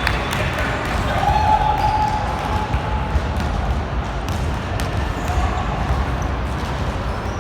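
Basketball bouncing on a gym court during a game, with scattered sharp knocks and voices over a steady low rumble. A held mid-pitched tone sounds about a second in and lasts roughly two seconds.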